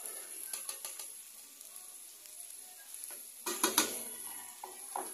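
Beef and tomatoes sizzling in a non-stick pan as grated carrots are tipped in and stirred with a wooden spoon, with small scraping clicks. A few sharp knocks of the spoon against the pan come about three and a half seconds in.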